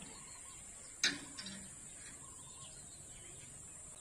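Steady high-pitched insect drone with faint bird calls, broken once about a second in by a short sharp click.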